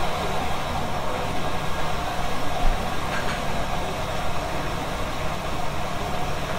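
Steady café room noise carried by the even hum of a running machine, with a faint constant tone in it and a light clink about three seconds in.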